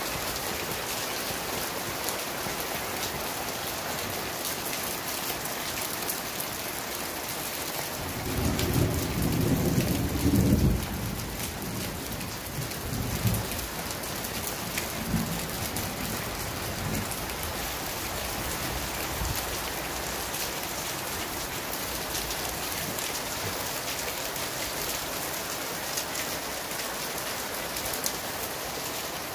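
Heavy rain falling steadily on leaves and a house. About eight seconds in, a roll of thunder rumbles for a few seconds, then fades through a few weaker rumbles.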